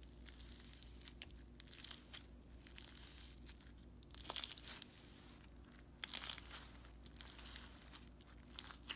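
Blue raspberry slushee slime being stretched and squished by hand, giving faint irregular crackling and popping, with louder clusters about four and six seconds in; only lightly crunchy for lack of beads.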